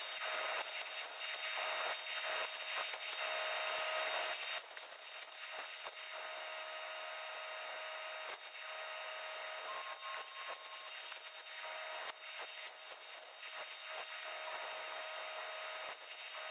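Arc welding on the steel trommel drum: a steady crackling hiss from the arc, dropping somewhat in level about four and a half seconds in.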